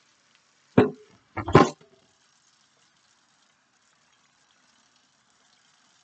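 Kitchenware being handled: one sharp knock about a second in, then a quick double knock half a second later, over a faint steady hiss.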